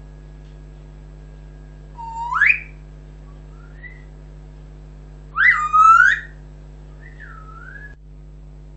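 African grey parrot whistling: a rising whistle about two seconds in and a faint short chirp, then a louder pair of swooping whistles around five to six seconds and a wavering whistle just after.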